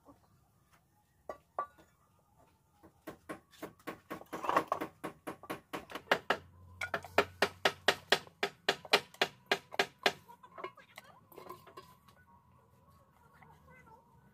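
Steel cookware clinking and knocking as pots and a steel mixing bowl are handled: a few knocks early on, then a quick, busy run of clinks, about three or four a second, from about three to ten seconds in.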